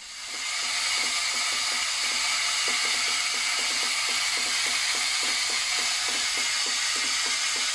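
PVC venturi fertilizer injector on a drip-irrigation line hissing steadily as water rushes through it. From about three seconds in, a soft rapid pulsing of about four or five beats a second runs under the hiss.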